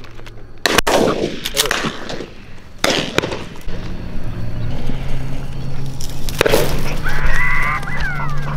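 Several shotgun shots from the line of dove hunters at uneven intervals, the sharpest about a second in and others at about three and six and a half seconds, each with a short ringing tail.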